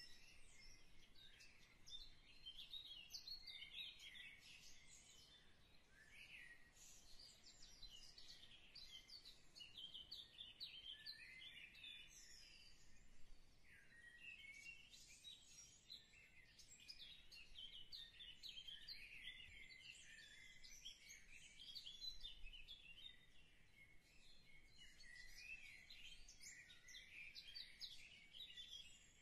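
Faint chorus of small birds chirping and twittering high-pitched, dense, with only brief lulls.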